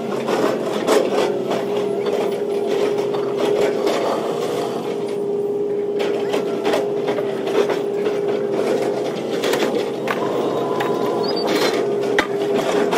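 A machine drones steadily at one pitch, with scattered clanks, knocks and scrapes of scrap metal being handled on and off a trailer.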